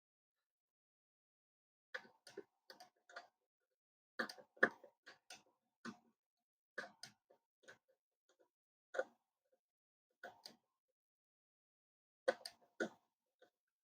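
Short, irregular clicks and scratches from a small hand tool picking and scraping at a laptop motherboard to expose the copper under damaged pads. The clicks come in loose clusters with pauses between them.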